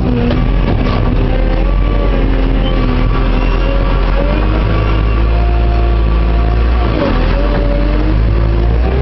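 JCB 532-120 telehandler's diesel engine running steadily under work, heard loud from inside the cab. The revs dip briefly and pick up again about seven seconds in.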